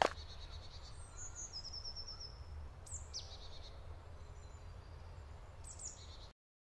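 Forest ambience: songbirds singing short high trills and runs of notes over a low steady rumble, with a single sharp knock at the very start. It all cuts off suddenly shortly before the end.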